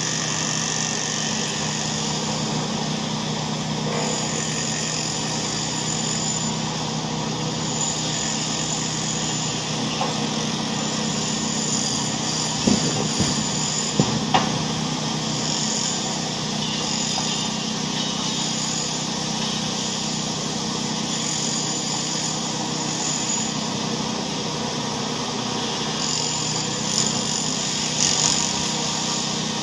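A machine running steadily with an engine-like drone, with a few short knocks and clicks about halfway through and again near the end.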